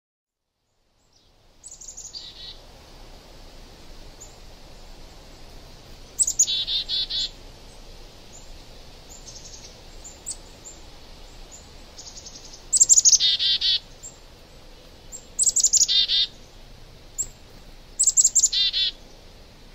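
Songbird singing, five short phrases of fast repeated downward-sweeping high notes a few seconds apart, with single chirps between, over a steady low background hiss.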